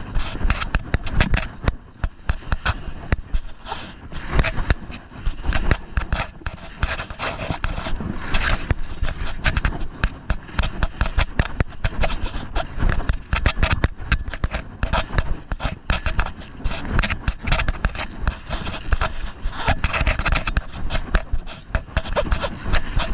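Skis scraping and chattering over firm, chopped-up snow on a run: a dense, irregular stream of clatters and scrapes.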